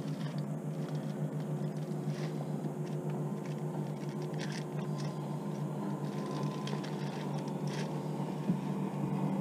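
Pontoon boat's outboard motor running with a steady low drone, with a few light clicks from fishing tackle being handled.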